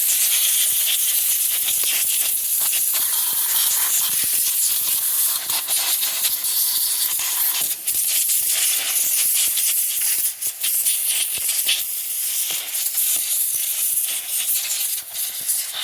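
Compressed air blowing dust out of the inside of a dirty Furby: a steady hiss with a few brief dips.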